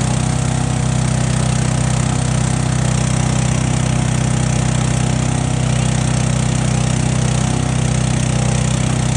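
An engine running steadily at a constant speed, with a low, even hum that does not change.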